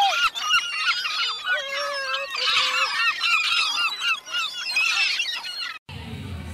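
A flock of gulls calling: many short, rapid, overlapping cries, several a second, with a few longer drawn-out calls among them. Near the end the calls cut off sharply and a low hum takes over.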